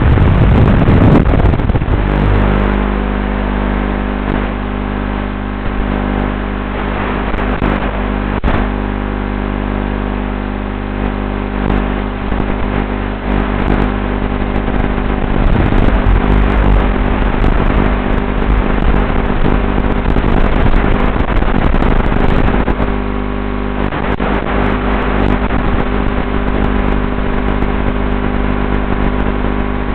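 Steady electric drone from an RC model's onboard camera audio, made of many fixed pitches. It slides down in pitch and level over the first two seconds, then holds steady while the crashed model lies still.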